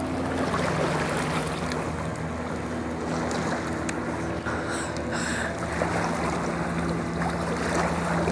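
Water and wind noise on a lake, an even wash with a steady low hum beneath it. Two short high squeaks come about five seconds in.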